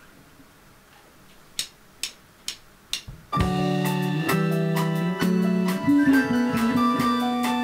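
Four sharp clicks evenly spaced about half a second apart count in a live rock band, which comes in together a little over three seconds in with sustained keyboard and electric guitar chords over drums.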